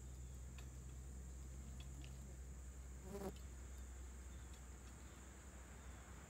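Faint outdoor ambience: a steady high-pitched drone over a low hum, with a few faint ticks and one short pitched call about three seconds in.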